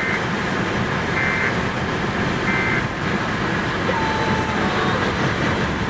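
Steady vehicle and road noise with a low rumble, broken by three short high electronic beeps spaced about a second and a quarter apart in the first three seconds.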